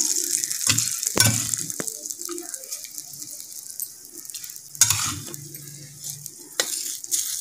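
Hot oil tempering with garlic, curry leaves and dried red chilli sizzling as it is spooned onto chutney in a steel bowl, the hiss fading over the first few seconds. A few sharp metal clinks against the bowl.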